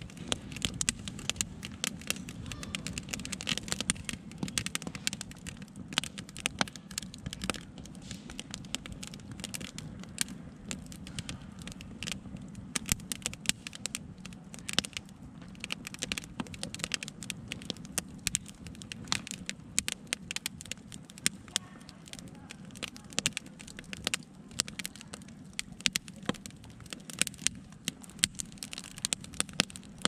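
Wood campfire with split logs burning: continuous irregular crackling with frequent sharp pops, over a low steady rumble.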